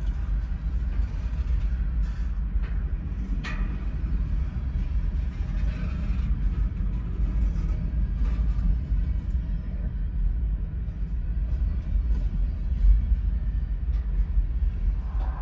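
Freight train of covered hopper cars rolling past close by: a steady low rumble of steel wheels on rail, with a sharp click about three and a half seconds in.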